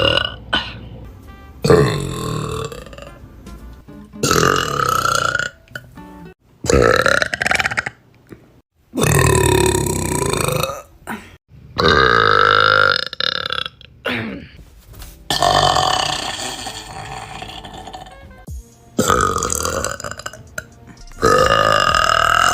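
A run of about eight long, loud burps, one after another with short gaps, each drawn out with a pitched, droning tone, from young women.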